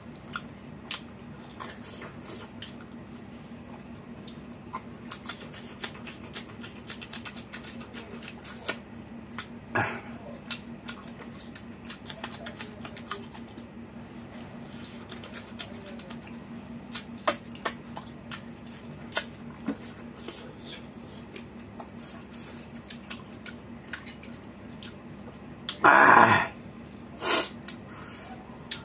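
Close-up eating sounds of a man eating rice by hand: scattered wet smacks and chewing clicks as fingers scoop food off a plate, over a steady low hum. Two short, louder sounds come near the end.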